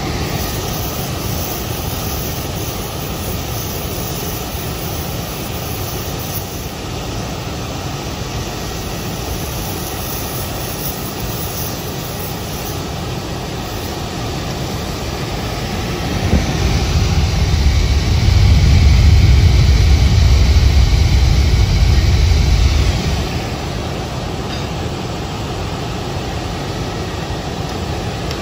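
Oxy-fuel torch flame burning steadily as it heats a diamond segment red-hot for silver brazing onto a steel saw-blade core. A little past the middle it turns louder and deeper for about seven seconds, then settles back.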